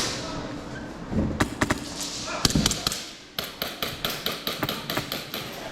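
Airsoft gun firing: a few single shots, then about three and a half seconds in, a quick run of sharp cracks at about five a second.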